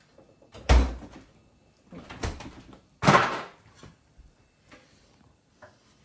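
Several kitchen knocks and clatters. The first, about a second in, is a loud thump. A lighter knock comes in the middle. Just after it comes another loud clatter that rings briefly, then a couple of faint taps near the end.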